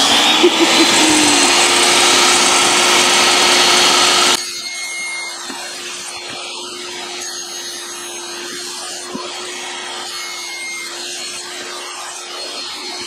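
Benchtop table saw running. It is loud for about the first four seconds, then drops suddenly to a quieter, steady running sound with a constant whine for the rest.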